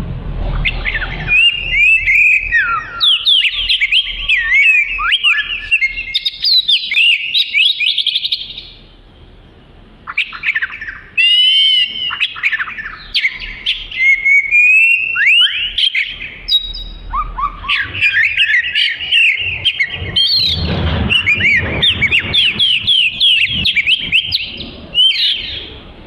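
Oriental magpie-robin (kacer) singing a loud, varied song of quick whistled notes and fast trills. It breaks off for about two seconds partway through, then starts again.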